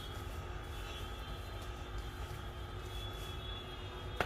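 Steady low machine hum with faint steady high tones running under it, and one short tap near the end.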